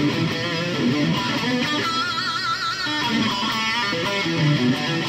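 Distorted electric guitar through a Boss Katana 100 MkII amp, its crunch channel boosted by a Metal Zone pedal with delay and reverb added: riffing with a held high note shaken with vibrato about two seconds in.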